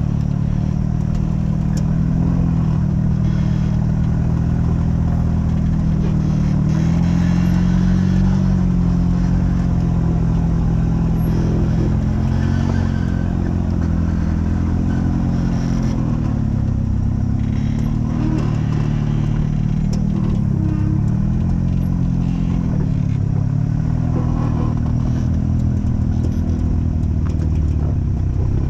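Off-road vehicle engine running under changing throttle, its pitch rising and falling again and again.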